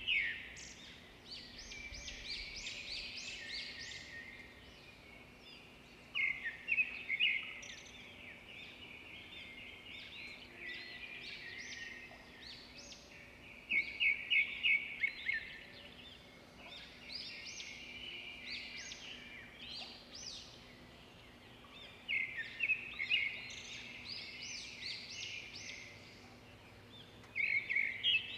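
Birdsong: a songbird singing short, high trilled phrases again and again, a new phrase every few seconds, over faint steady background noise.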